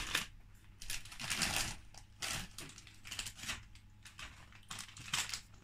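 A foil crisp packet crinkling in short, irregular bursts as it is handled, passed between hands and crisps are taken out of it.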